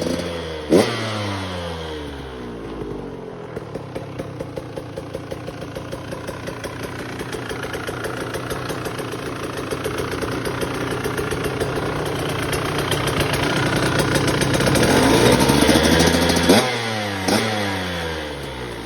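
Two-stroke single-cylinder engine of a 2022 KTM SX125 dirt bike running through a Pro Circuit R304 shorty silencer, with a crisp exhaust note. About a second in there is a sharp throttle blip that falls back to a fast idle. The revs then climb slowly and drop away, with two more quick blips near the end.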